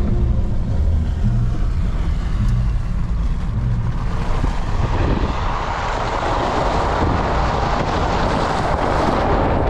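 Jeep Gladiator driving on a road, with steady engine and road rumble. About halfway through, a loud rush of wind over the microphone swells up and stays.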